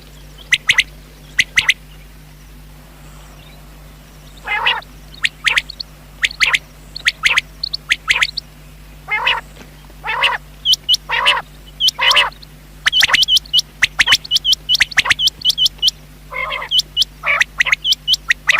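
Rain quail calling: sharp, high whistled notes repeated in quick runs, mixed with lower, rougher calls, with a pause of a couple of seconds early on.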